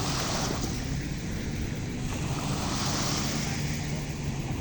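Sea waves washing, swelling near the start and again about three seconds in, with wind buffeting the microphone and a steady low hum underneath.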